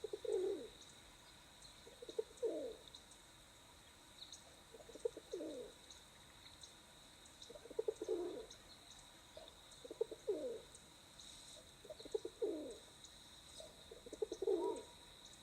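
Rock pigeon cooing: its song, a rolling series of throaty coos repeated seven times, about one every two seconds.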